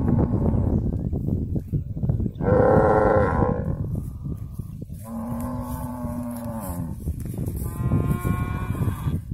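Cattle mooing three times, each a long call; the first, a bit over two seconds in, is the loudest. A steady low rumble runs underneath.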